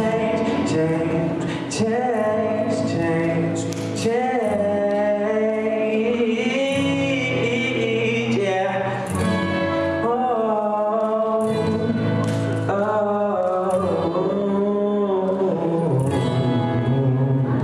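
A man sings live into a handheld microphone over instrumental backing music, his voice holding and sliding between notes, with the echo of a large hall.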